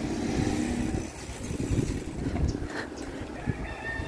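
Wind buffeting the microphone of a moving bicycle rider, a dense low rumble, with faint high chirps near the end.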